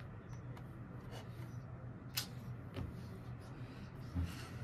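Quiet room tone with a steady low hum, broken by a few light clicks and taps from small handling noises at the desk: one about two seconds in, another a little later, and a soft knock near the end.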